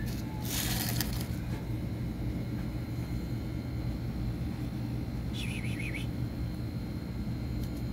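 A steady low rumble with a faint constant whine, a short rustling scuff about half a second in, and a brief high wavering chirp near six seconds.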